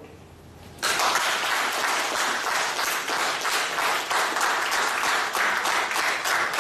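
Audience applauding, starting suddenly about a second in and continuing steadily as many overlapping hand claps.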